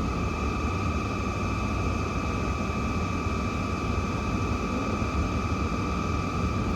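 A platform departure signal for a Shinkansen train sounds as one steady electronic tone for about seven seconds, then cuts off. A constant low rumble runs beneath it.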